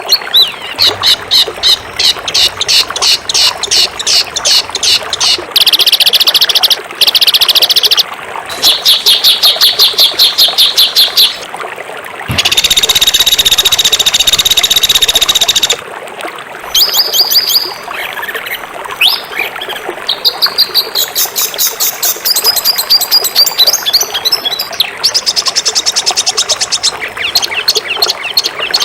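Small songbirds singing loud, fast, harsh songs of rapid repeated chips and trills, with a long continuous buzzy run about twelve seconds in.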